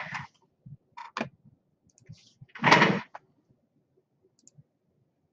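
Faint clicks and knocks of someone moving at a computer desk, with one louder, brief rush of noise about two and a half seconds in.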